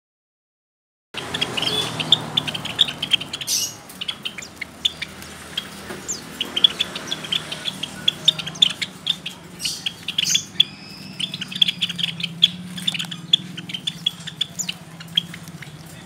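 A flock of Java sparrows chirping, starting about a second in: many short, high chips in quick, overlapping succession, over a low steady hum.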